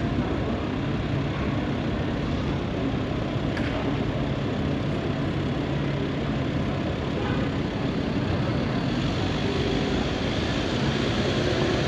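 City street ambience: a steady low hum of traffic and trams beside the pavement.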